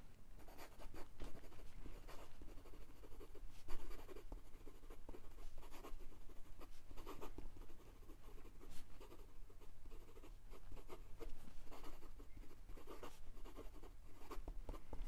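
Ferris Wheel Press Carousel fountain pen's stiff nib writing quickly on notebook paper: faint, irregular strokes of the nib moving across the page, with a few small ticks as it lifts and lands.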